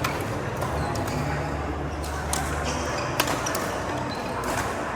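Badminton rally: rackets strike a shuttlecock with sharp smacks about once a second, the loudest about three seconds in, over a steady low hum.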